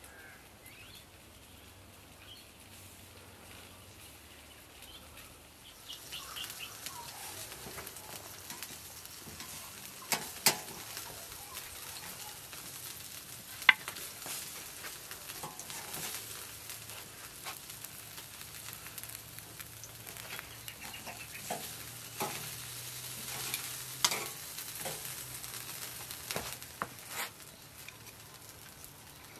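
Hot grilled chicken sizzling, a fine hiss that sets in about six seconds in. Scattered sharp clicks and knocks come from metal tongs handling the pieces.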